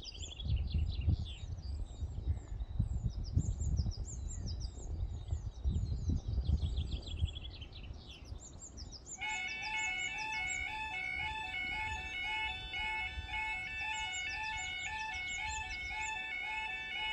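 Birds chirping over low gusting rumble. About nine seconds in, the half-barrier level crossing's two alarms start sounding together, an evenly repeating electronic beeping pattern that warns of an approaching train as the crossing sequence begins.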